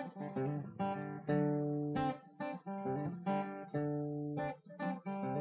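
Intro music: a guitar plucking a tune of separate notes and chords that each ring and fade.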